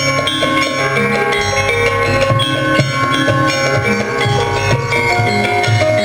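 Javanese gamelan music: struck metallophone keys and gongs ringing in overlapping sustained notes over steady drumming.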